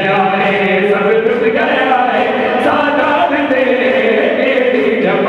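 A man singing a Punjabi noha (Shia lament) through a microphone and PA in long, wavering chanted lines, with other voices chanting along. Short, regular beats run under the singing, like hands striking chests in matam.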